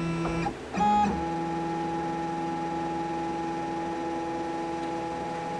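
Shapeoko Pro CNC router's stepper motors whining as the machine moves the router through its BitSetter tool-measuring sequence. The whine changes pitch about half a second in, jumps louder just after a second, holds steady, then drops near the end as the motion changes.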